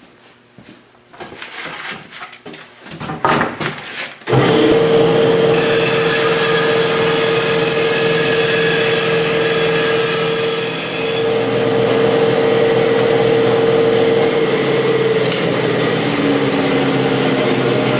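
A bandsaw starts up about four seconds in, after a few handling knocks, then runs steadily with a constant hum while a sheet of plywood is fed through the blade for a rough cut.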